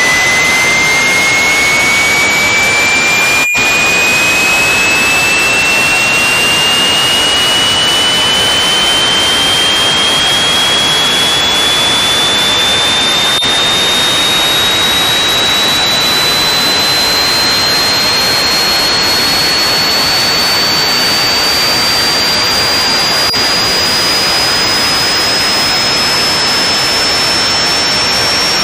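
Power electronics noise track: a loud, unbroken wall of harsh static with a single electronic tone gliding slowly upward through it. A momentary drop-out cuts the noise about three and a half seconds in.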